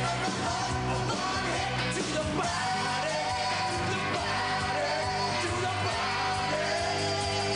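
Rock music with a singing voice, running without a break.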